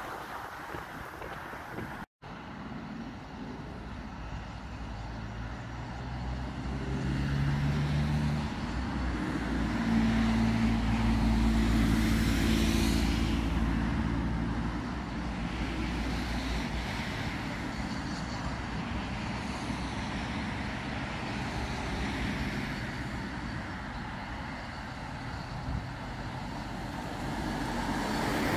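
A motor vehicle's engine grows louder about six seconds in, passes close at its loudest some ten to thirteen seconds in, then fades, over steady outdoor rumble. The sound breaks off for an instant about two seconds in.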